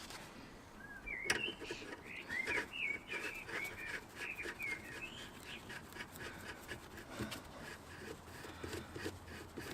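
A small bird singing a quick run of chirps for a few seconds, over faint scattered clicks and taps of hand work on the car.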